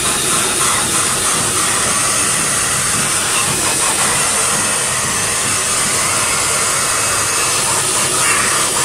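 Hand-held Wahl pet blow dryer running on a wet dog's coat: a loud, steady rushing hiss of blown air.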